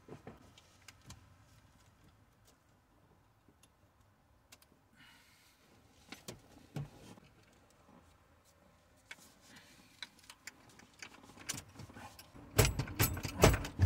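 Steering column assembly being worked up into the dashboard: scattered light clicks and rattles of its metal parts and wiring, then a quick run of loud knocks and clatter near the end as it is pushed into its mount.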